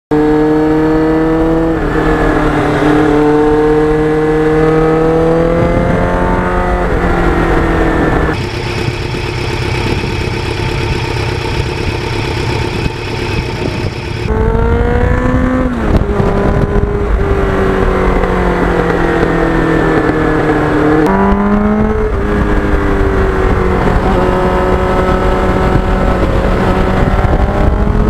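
Kawasaki GPX750R sportbike's inline-four engine pulling hard under way. Its pitch climbs and drops back at each gear shift, with a steadier, level stretch in the middle.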